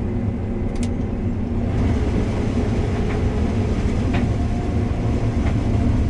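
Combine harvester running steadily with its corn header engaged forward to clear a wad of stalks that had choked the auger. The machine grows a little louder about two seconds in, and a few faint ticks come through.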